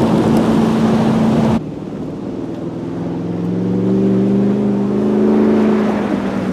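Ford F-150 Raptor R's supercharged 5.2-litre V8 under way: a loud rushing noise over a steady engine drone cuts off abruptly about a second and a half in, then the engine note comes back quieter and climbs slowly in pitch as it gathers revs.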